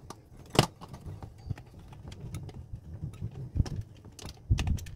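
Scattered sharp clicks and knocks of hands handling an electric pressure rice cooker and its inner pot, with a heavier, lower knock near the end.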